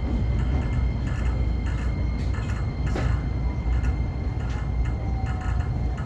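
A JR 125-series electric railcar running on the line, heard from behind the driver's cab: a steady low rumble with scattered clicks and a sharp knock about three seconds in, over a thin steady high tone.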